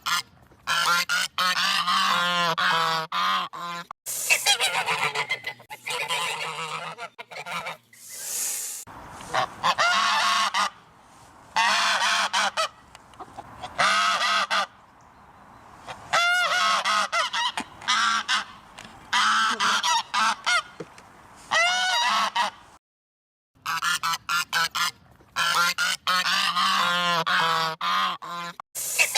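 Geese honking over and over, loud harsh calls in runs of a few seconds that break off suddenly into short gaps.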